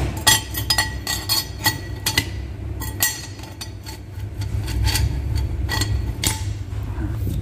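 Steel and copper-faced clutch discs and plates of an OS Giken twin-plate clutch clinking and knocking against the cover and flywheel as they are set back in by hand. The clinks are irregular, each with a short metallic ring.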